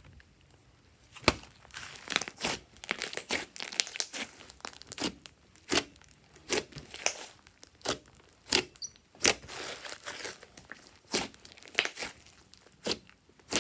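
Hands squeezing and stretching thick slime, giving irregular crackles and sharp pops that start about a second in.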